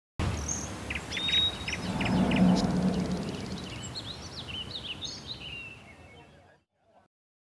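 Several birds chirping and calling, short high notes and quick glides, over a low background rumble; the sound starts abruptly and fades out about six and a half seconds in.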